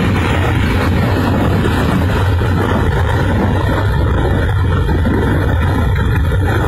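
Water blasting out of a dam's large outlet pipes: a loud, steady rushing roar with a deep rumble underneath.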